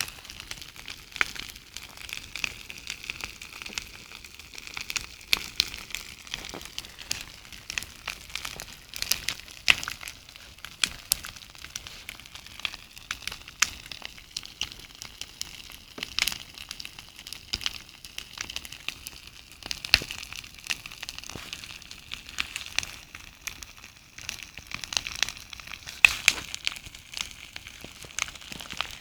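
Campfire burning, with a steady hiss and many irregular sharp crackles and pops from the burning wood.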